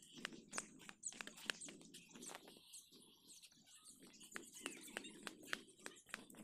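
Faint footsteps crunching and rustling on a dry, straw-strewn dirt path, heard as scattered irregular clicks, with faint bird chirps.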